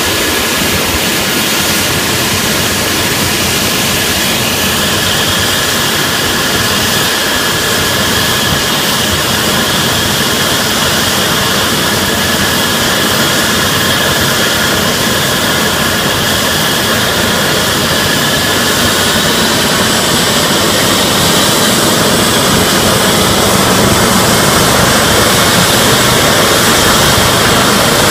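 Eurocopter EC135 rescue helicopter running on the ground with its main rotor turning before take-off: a steady turbine whine over a broad rotor and exhaust rush, growing a little louder over the second half.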